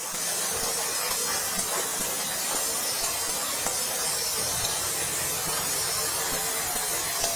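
Food sizzling steadily in a hot pan: an even hiss.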